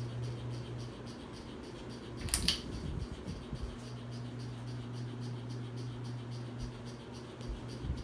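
Hampton Bay Landmark III Plus ceiling fan running with a steady low motor hum. About two and a half seconds in, a single sharp click from a pull-chain switch on the fan's light kit.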